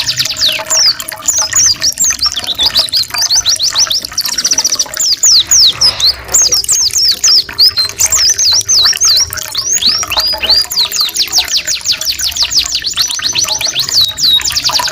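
Canary and oriental white-eye song from a tutor recording: fast trills and rolls of repeated high sweeping notes, one run after another without a break, over trickling water.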